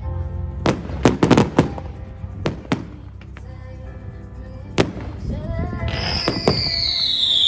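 Fireworks going off: a quick string of sharp bangs in the first three seconds and another bang near five seconds, then a long whistling firework that slides slowly down in pitch near the end. Music plays underneath.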